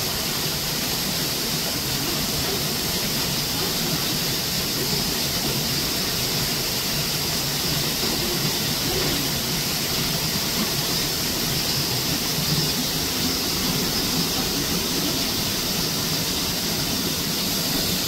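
Shallow mountain stream flowing over granite rocks: a steady rushing of water, with a steady high hiss above it.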